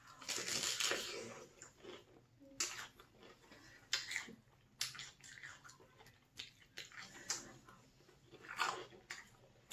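Close-miked chewing of a mouthful of pepperoni pizza dip: wet mouth noises and smacks in short, irregular bursts, the longest in the first second or so.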